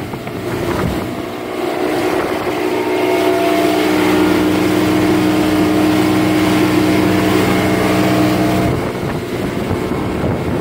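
Yamaha outboard motor driving a 24-foot work boat at speed: a steady engine drone over wind and water hiss. About nine seconds in the engine's steady note falls away, leaving the rushing noise.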